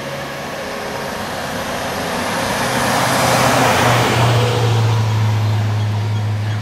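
A road vehicle passes close by: tyre and engine noise swells to a peak about halfway through, then a steady low engine hum carries on.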